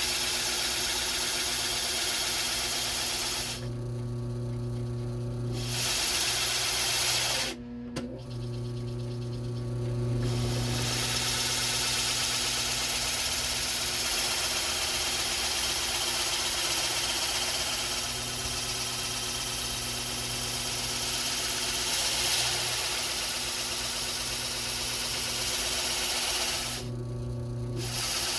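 Drill press motor running steadily with the bit grinding into a block, a grating hiss over the motor's hum. The grinding stops three times (briefly about four seconds in, for a couple of seconds around eight seconds, and again near the end) when the bit is lifted, leaving only the motor hum.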